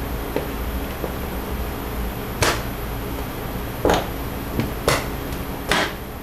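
Plastic side cover of a Harley-Davidson touring motorcycle being pushed and snapped onto its mounts by hand: a few light ticks, then four sharp knocks and clacks from about two seconds in. A steady low hum runs underneath.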